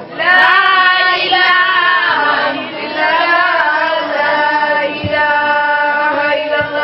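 A woman's solo voice chanting a Sufi dhikr, drawing out long held notes that slide and bend between pitches, with a short break near the middle.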